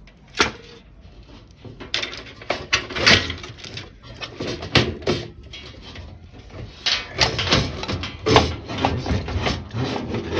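Irregular knocks, clunks and rubbing of computer hardware being handled: a desktop power supply and its cables knocking against a metal PC case, with the loudest knocks about half a second in, about three seconds in and about eight seconds in.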